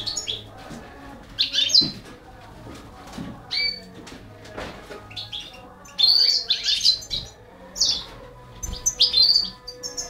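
Short bursts of high, shrill chirping from baby canaries being fed by a Balkan goldfinch: the begging calls of the nestlings at feeding. The loudest run of chirps comes about six to seven seconds in.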